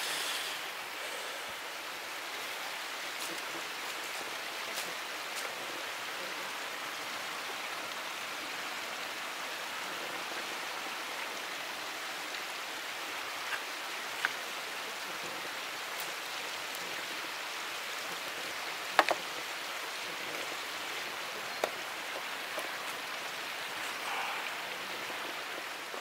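Steady rushing of a mountain stream, with a few sharp pops from a wood fire catching in a fire stand, the loudest a quick double pop about nineteen seconds in.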